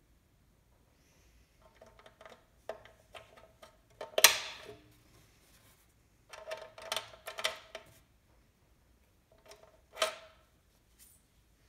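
Plastic clicking and scraping as a 3D-printed SD card guide is snapped into the SD card slot of a Mosaic Palette+ and an SD card is pushed in through it. The clicks come in three short clusters, the sharpest about four seconds in.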